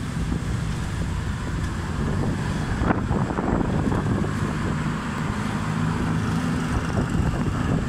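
Tuk-tuk engine running as the auto rickshaw drives along, its note shifting up and down, with wind noise on the microphone.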